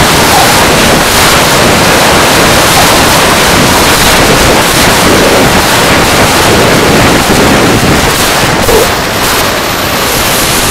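Loud, steady rush of wind and engine noise picked up by a camera mounted on a radio-controlled jet in flight.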